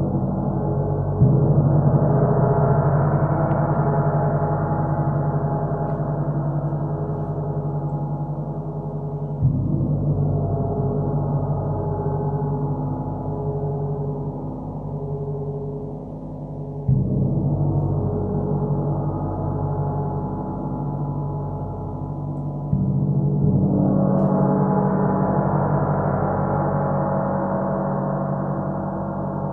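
A 32-inch bubble drop gong rings continuously, struck softly with a felt mallet four times, roughly every six to eight seconds. After each strike the ringing wash of overtones swells for a few seconds, and each ring runs on into the next.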